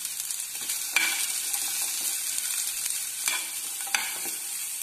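Shallots, garlic and curry leaves sizzling in hot oil in a metal pan while being stirred, a utensil scraping and knocking against the pan. The sizzle is a steady hiss, broken by a few sharp knocks, the loudest about a second in.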